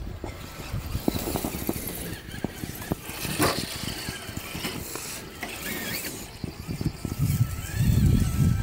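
Radio-controlled scale crawler's electric motor and gearbox whining as it drives, with its tyres crunching and scraping over dirt and small stones. A louder low rumble comes near the end.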